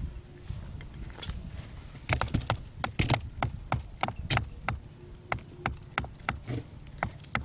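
A quick, uneven run of sharp knocks, about three to four a second, starting about two seconds in, like something being struck or chopped with a hand tool.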